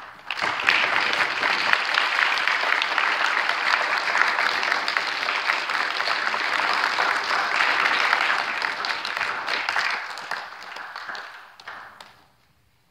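Audience applauding. It starts suddenly, holds steady for about ten seconds, then dies away over the last two or three seconds.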